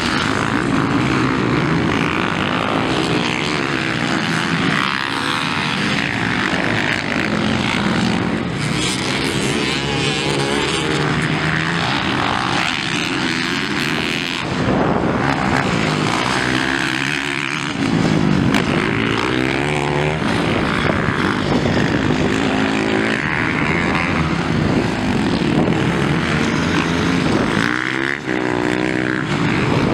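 Several motocross dirt bikes' engines racing on the track, revving hard and easing off, their pitch climbing and dropping with the throttle as they pass.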